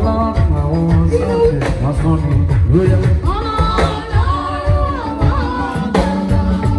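Live band music during a sound check: a singer's melody over a deep bass line and a steady drum beat.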